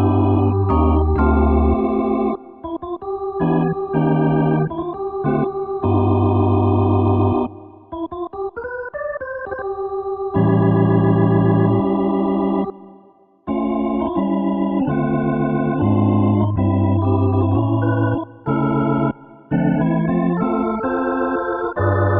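Yamaha PSR-S670 digital arranger keyboard playing an organ voice: held chords over a low bass note, changing every second or two, with a rising run of notes in the middle and a few short pauses between phrases.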